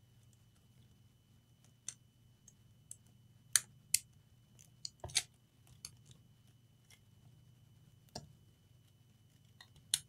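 About ten small, sharp clicks and taps, scattered and uneven, the loudest two about three and a half and four seconds in, as flex-cable connectors are pressed back onto a laptop motherboard.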